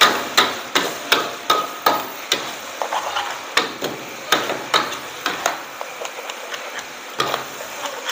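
Metal ladle and tongs clanging against a wok as fried noodles are tossed, about two or three sharp knocks a second, some with a brief metallic ring. The knocks thin out after the middle, pause briefly, then resume near the end.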